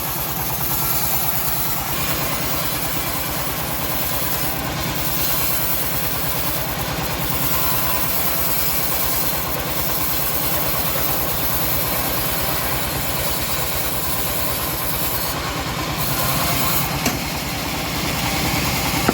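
Engine of a homemade bandsaw sawmill running steadily, with an even low chugging pulse and a hiss over it.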